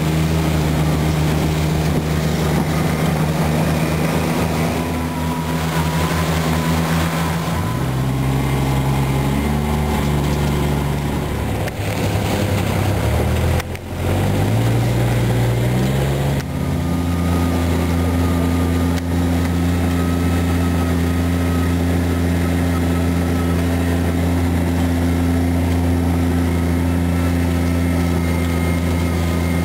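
Club Car XRT1550 side-by-side engines running at steady revs while driving trails and mud, in several clips cut together, so the engine note changes abruptly a few times. About halfway, one engine revs up with a rising pitch, then runs steadily.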